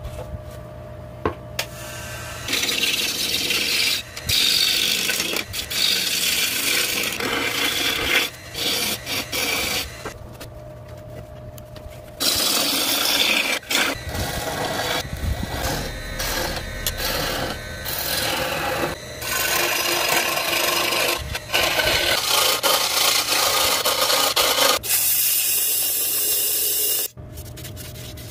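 A gouge cutting into a log spinning on a wood lathe, giving a rough scraping hiss in stretches that start and stop abruptly, with a low steady hum from the lathe at the start.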